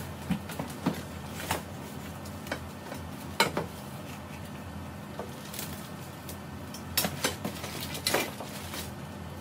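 Metal clothing-rack parts clinking and knocking against each other and the cardboard box as they are unpacked, in irregular sharp clicks, the loudest about three and a half seconds in and a cluster near the end.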